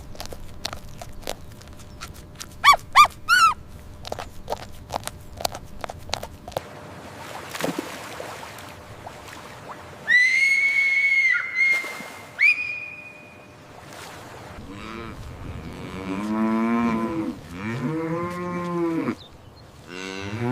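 A series of animal calls. First comes a run of clicks and a few short falling chirps. About ten seconds in there is a high, steady, whistle-like call, and near the end come long, low, wavering calls of a farm animal.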